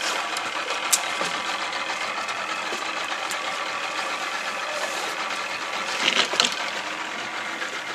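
Boat motor running steadily with an even hum, a sharp click about a second in and a short clatter around six seconds in.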